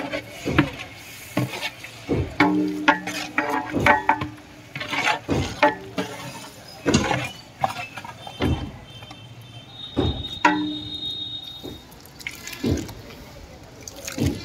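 A long metal ladle scraping and clanking against the side of a large metal cooking pot while sliced tomatoes are stirred in oil, with irregular knocks about once a second.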